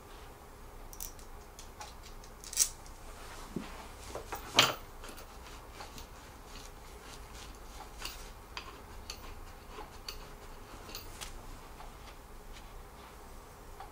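Small metal assembly bolts clicking and clinking as they are handled during furniture assembly, with a couple of sharper knocks about two and a half and four and a half seconds in.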